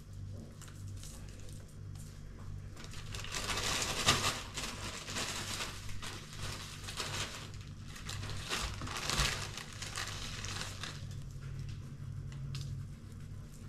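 Plastic bag of crushed pastry crumbs crinkling and rustling as it is handled, in two stretches of a couple of seconds each.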